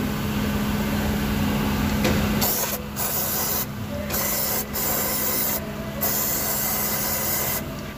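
An aerosol can of brake cleaner is sprayed through its straw in about five hissing bursts, starting about two and a half seconds in, washing spilled diesel off the fuel filter and priming pump. A steady low hum sits underneath at the start.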